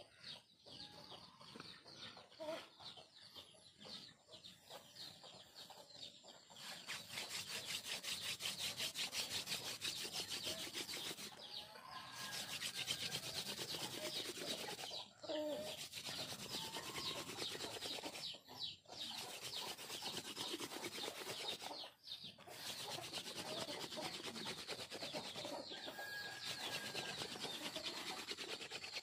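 Hand-drill friction fire: a wooden spindle spun back and forth between the palms, drilling into a flat wooden hearth board with a steady rubbing, grinding noise. The noise starts about seven seconds in and runs in long spells, with short breaks every few seconds as the hands go back to the top of the spindle.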